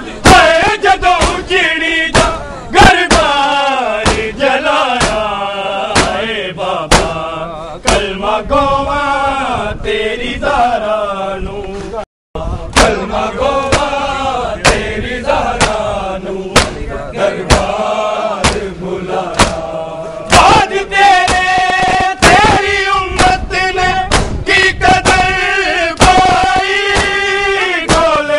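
Men chanting a noha, a Shia lament, with loud, irregular hand slaps of matam chest-beating cutting through the singing. The sound drops out completely for a moment about twelve seconds in.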